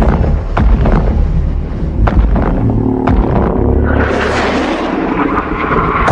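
Fan-made Evolved Godzilla monster sound effect: a series of heavy booming hits over a deep rumble, then a hissing rush that swells about four seconds in.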